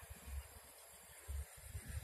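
Faint outdoor background: a steady faint hiss, with a couple of brief low rumbles on the microphone.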